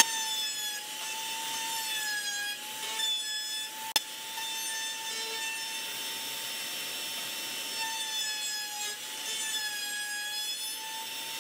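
Table-mounted router with a round-over bit running as a 3/4-inch pine plywood strut is fed past it, rounding over the edges: a steady high whine over the hiss of cutting wood, dipping slightly in pitch now and then. A single sharp tick about four seconds in.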